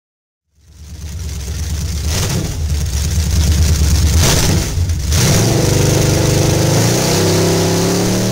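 Race car engine, loud and revving, starting about half a second in; its pitch climbs a little over the last three seconds.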